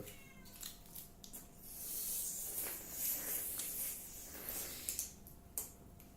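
Sounds of eating and handling takeaway food by hand: a few light clicks near the start and near the end, and a soft rustling stretch in the middle.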